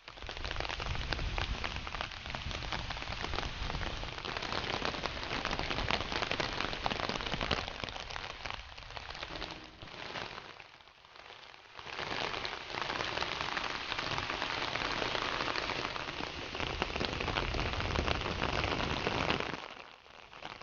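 Rain falling, a dense patter of many drops, which eases briefly about ten seconds in before picking up again.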